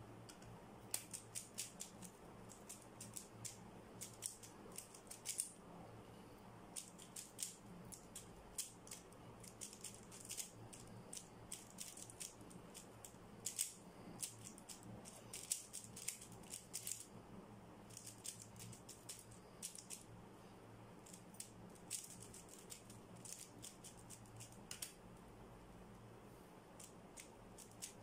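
3x3 Rubik's cube being turned fast in a speedsolve: runs of quick, faint plastic clicks as the layers snap round. The clicks are densest over the first two-thirds and thin out near the end.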